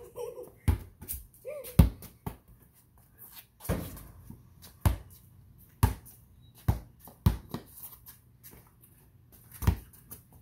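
Basketball being dribbled on a concrete driveway: about nine sharp, irregular bounces, roughly a second apart.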